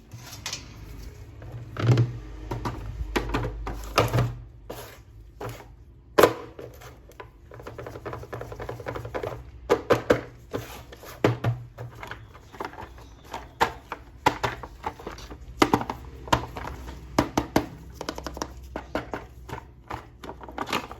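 Hands handling plastic toys and packaging: irregular clicks, taps and knocks of hard plastic pieces.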